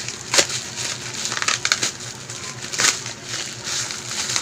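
Parcel packaging being torn open by hand, crinkling throughout, with sharp ripping sounds about half a second in, a cluster around a second and a half, and another near three seconds.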